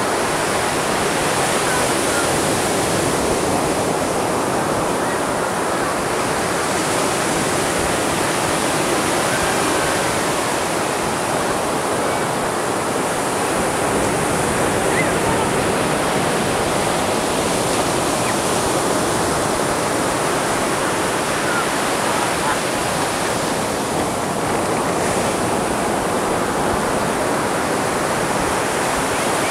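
Atlantic surf breaking and washing onto the beach: a steady rush of waves with gentle swells in level as each one breaks.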